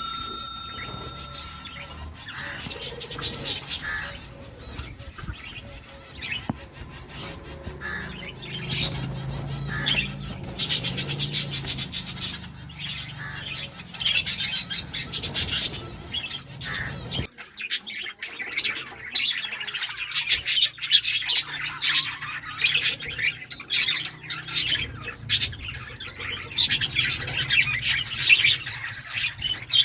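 Lovebirds chirping and twittering in a fast, dense stream of high chirps. About halfway through the sound breaks off sharply and the chirping picks up again.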